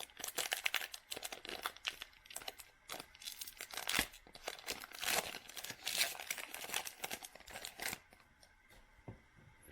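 A basketball trading-card pack wrapper being torn open and crinkled by hand: a dense run of crackling for about eight seconds, then much quieter near the end.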